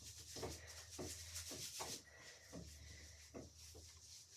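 Faint rubbing and scrubbing of hands on a wet cat's fur during a bath, strongest in the first two seconds, then fainter.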